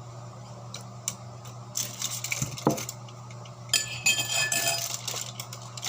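Food being prepared by hand: light clinks and rattles of utensils and dishes, with crackly rustling about two seconds in and again from near four seconds, over a faint steady hum.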